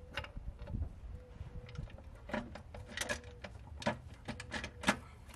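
Metal upper intake plenum of a VQ35DE V6 being set down and seated onto the plenum spacer: a string of light knocks and clicks as metal meets metal, the loudest near the end.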